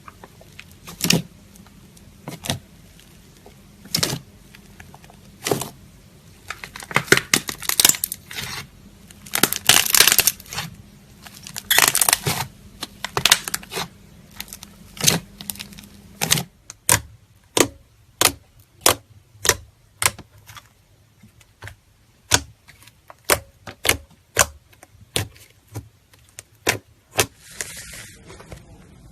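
Slime being squeezed and poked by hand, making sharp clicks and pops: irregular with a few crackly bursts at first, then a steady run of about two pops a second. A short hiss comes near the end.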